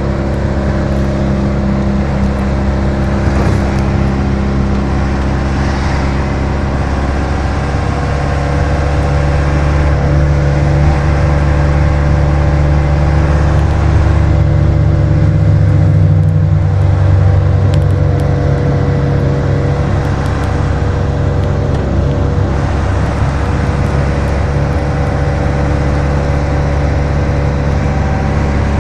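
Steady engine hum and road noise heard from inside a moving road vehicle. The engine note rises and grows louder for several seconds around the middle, then eases back.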